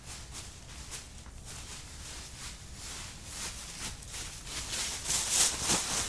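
Footsteps on dry leaves: a run of rustling steps, getting louder near the end.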